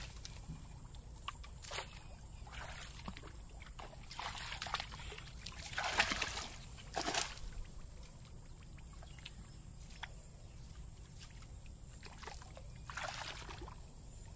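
Shallow water sloshing and splashing as a collapsible mesh net trap is dragged and handled through it, in a handful of short splashes, the loudest about six and seven seconds in.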